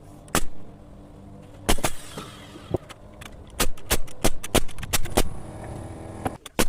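A run of sharp knocks from carpentry on wooden floor joists: single strikes early on, then a quick series of about three strikes a second in the middle, over a steady low hum.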